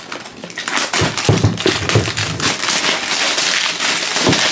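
Toy box packaging being torn and crinkled open, a dense continuous crackling with a few dull knocks from handling the box.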